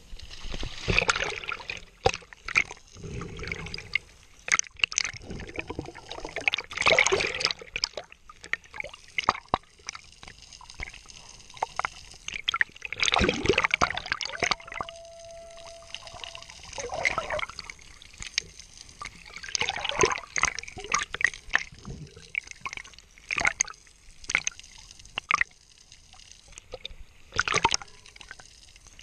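Water splashing, sloshing and gurgling around a diver at the surface, then bubbling and swirling water as the diver ducks under and swims down, in irregular bursts. A faint steady tone sounds for about two seconds halfway through.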